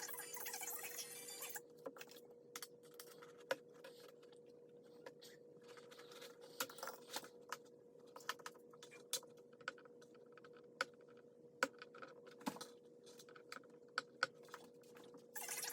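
Background music that stops about a second and a half in, then irregular light clicks and taps over a faint steady hum.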